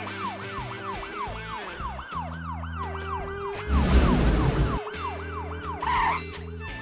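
Cartoon police siren wailing in quick rising-and-falling sweeps, about three a second, over background music. About four seconds in, a loud noisy rush cuts across it for about a second, and near the end a short warbling tone sounds.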